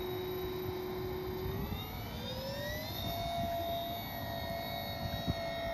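Twin electric motors and propellers of an RC Twin Otter floatplane whining as it taxis on the water; the pitch rises smoothly about two seconds in as the throttle is opened, then holds steady and begins to drop at the very end.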